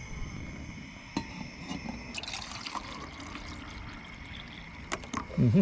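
Water poured from a bottle into a stainless steel camping mug, with a light knock about a second in and another near the end.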